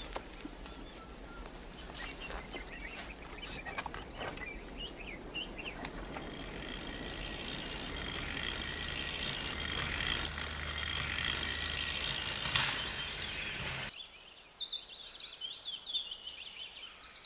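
Outdoor bush ambience: a steady hiss with scattered rustles and clicks. About fourteen seconds in it turns quieter and birds chirp rapidly.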